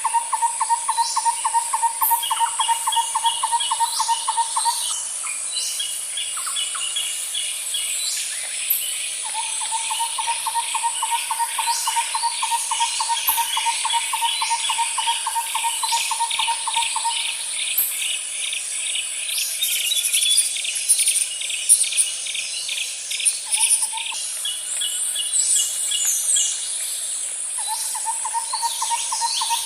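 Layered wildlife ambience: many birds calling and chirping over a steady, high-pitched insect drone, with fast pulsed chirping. A low, rapid trill starts and stops in spells of several seconds.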